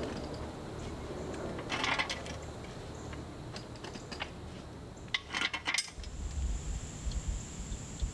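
Metal clinks and rattles from a climbing tree stand being worked up a tree trunk, coming in two clusters, about two seconds in and about five seconds in. From about six seconds on a steady high-pitched insect buzz holds.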